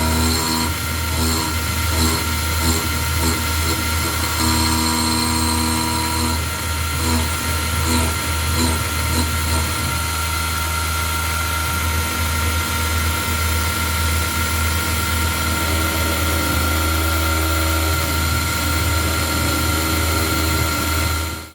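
KX-3 CNC milling machine running while it cuts a cast iron flywheel blank: a steady spindle whine over a low hum, with a warbling cutting sound in the first six seconds or so. The sound cuts off suddenly at the end.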